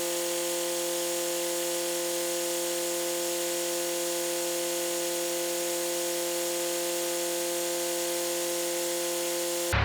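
A steady mechanical whine made of several unchanging tones, constant in pitch and level, that cuts off abruptly near the end.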